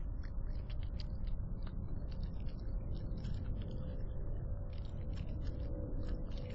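Raccoon chewing chicken scraps: an irregular run of small clicks and crunches, over a steady low rumble and faint hum from the security camera's microphone.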